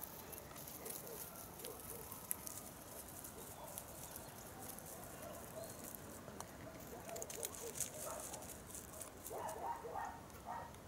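Distant dogs barking faintly, a series of short barks that come thicker over the last few seconds, over light scattered crackling clicks.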